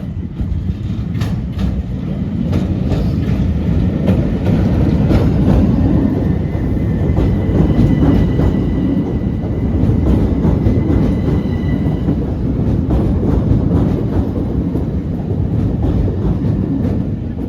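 Southern Class 377 Electrostar electric multiple unit moving through the station: a steady rumble with wheels clicking over rail joints, and a faint high whine from about six to twelve seconds in.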